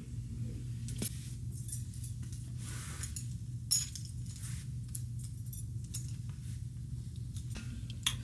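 Scattered light clinks and jingles of small hard objects with some rustling, the sharpest clink nearly four seconds in, over a steady low hum.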